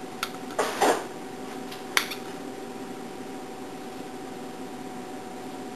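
Plastic hoses being worked off the foam generator of a car-wash shampoo brush: a few sharp clicks and a short rustle, over a steady background hum.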